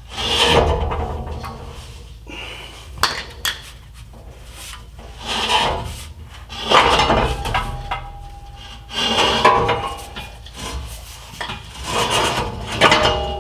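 Rusty factory diesel particulate filter exhaust section scraping and knocking as it is twisted and worked loose by hand, in about six bouts of grinding metal-on-metal rubbing with sharp knocks in between.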